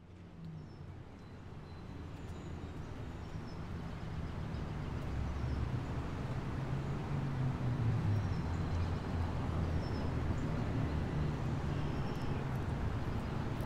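Outdoor road-traffic ambience: a steady low rumble of passing traffic that fades in over the first few seconds, with a few faint bird chirps above it.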